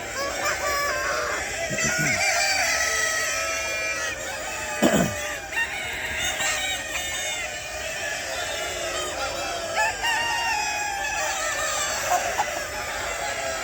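A flock of chickens clucking and calling over one another, with a rooster crowing. A loud falling call about five seconds in stands out.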